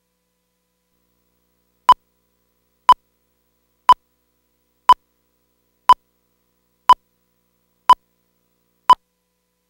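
Countdown leader beeps: eight short beeps of one steady pitch, exactly one second apart, each marking a number of the countdown before the programme starts. Silence between the beeps.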